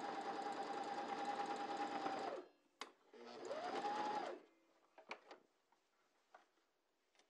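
Electric sewing machine stitching a straight seam, running steadily and stopping about two and a half seconds in. It runs again briefly a second later, its pitch rising as it gets going, then stops, followed by a few light clicks.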